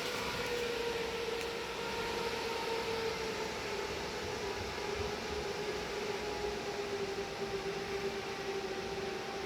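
HP ProLiant ML350 Gen6 server's cooling fans running, a steady whine with rushing air that slowly falls in pitch as the fans spin down.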